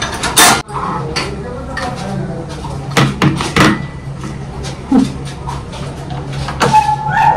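Several sharp knocks and clatters, the loudest about half a second in and a cluster of three around the middle, over a steady low hum, with voices near the end.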